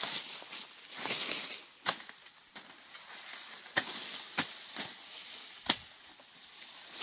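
Tall grass being cut by hand: several sharp chops of a blade through thick stems, with rustling leaves between them.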